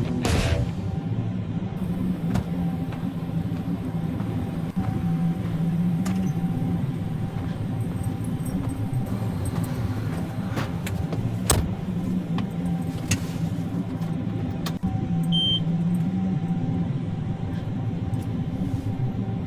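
A motor vehicle's engine running steadily, with a low hum, light rattles and a few sharp clicks, the loudest about eleven and a half seconds in.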